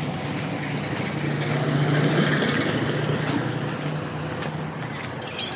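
A motor vehicle passing by, its engine hum and road noise swelling to a peak about two seconds in and then fading away.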